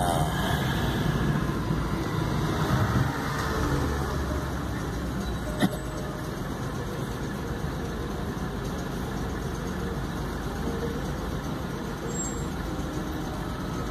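Steady engine and road noise heard inside a car on a wet street, easing a little after about four seconds as the car comes to a stop in traffic. One sharp click comes near the middle.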